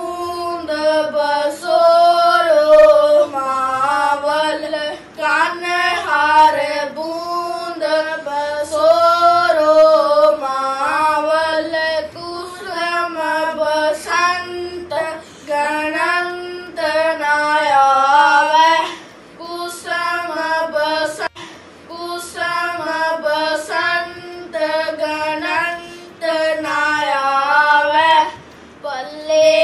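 Two young boys singing a Sikh shabad (Gurbani hymn) together in Punjabi, a melodic line in phrases with short breaths between them.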